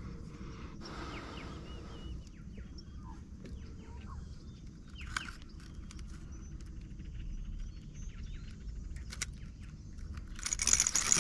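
Scattered bird chirps over a low, steady rumble of wind. About ten seconds in comes a loud burst of splashing as a small peacock bass, held at the kayak's side, thrashes in the water.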